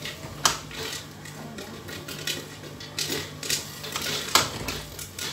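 Popcorn kernels starting to pop in a stirred pan over a gas burner: scattered sharp pops, a few loud, over the steady low hum of the machine's stirring motor. The first pops are the sign that the popcorn is almost done.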